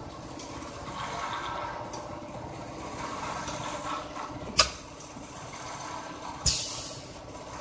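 Two-nozzle pneumatic liquid filling machine running with a steady mechanical hum as it fills plastic jugs. Two sharp clacks stand out, one a little past halfway and one near the end, the second followed by a short hiss of released air.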